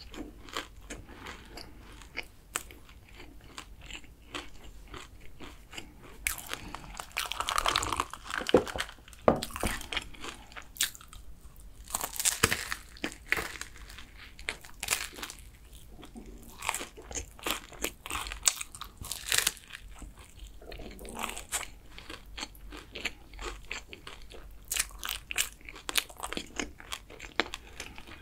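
Close-miked eating of flaky kouign-amann pastry: several crisp, crunchy bites through the layered crust, with chewing and small crackles in between.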